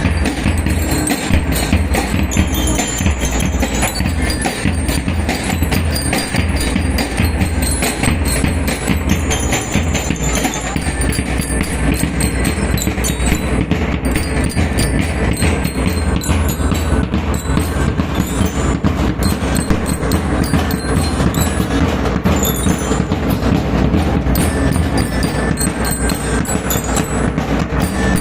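Lyre-and-drum band playing: metal bell lyres over a continuous beat of drums.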